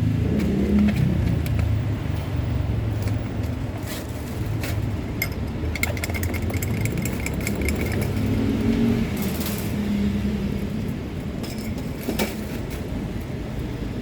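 Motor vehicles passing on a road, a steady low engine rumble with hum that rises and fades. Scattered light clicks and clatter come in around the middle.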